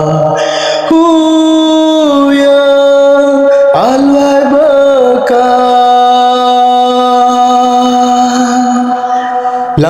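A solo voice chanting in long drawn-out notes, each held steady for one to several seconds before stepping to a new pitch, with a brief wavering turn about four seconds in.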